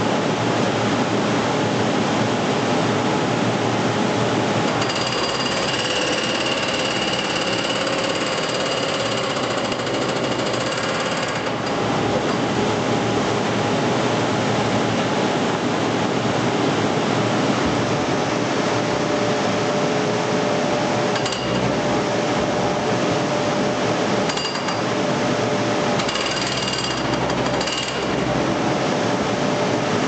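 Hydraulic breaker on a B800 demolition machine hammering without a break at a furnace's refractory brick lining, knocking the bricks loose. A high ringing tone sounds over the hammering at times.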